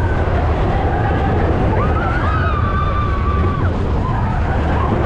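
Steady low rumble and hiss throughout, with faint voices in the background about halfway through.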